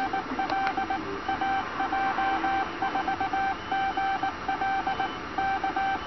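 Morse code (CW) tone sent by an Arduino Nano automated straight keyer: one steady mid-pitched tone keyed on and off in dots and dashes at an even sending speed.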